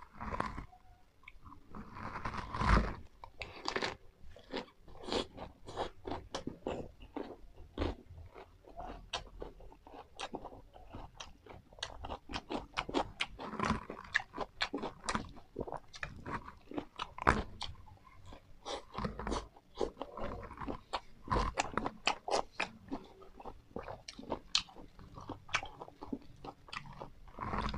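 Close-miked chewing and crunching of a lettuce and fresh-herb wrap filled with Banhchheav, the crisp Khmer rice-flour crepe. It is a dense, irregular run of sharp crunches, several a second.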